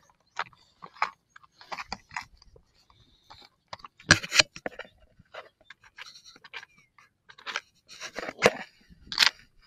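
Irregular clicks, rustles and scrapes close to the microphone, from hands handling fishing tackle while swapping the lure, with a couple of louder knocks about four seconds in and near the end.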